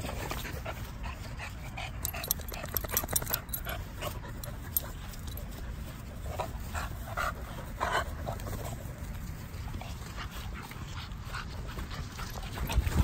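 Dogs at play giving short, high whining calls in two clusters, about two seconds in and again about seven seconds in, over a steady low rumble.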